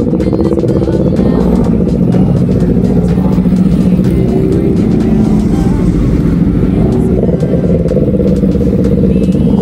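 Several motorcycle engines running and revving, loud and steady, with music playing over them.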